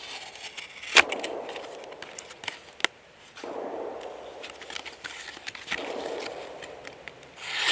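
Snap-blade utility knife slicing through material in three drawn-out cutting strokes, with a sharp click about a second in and a few lighter clicks.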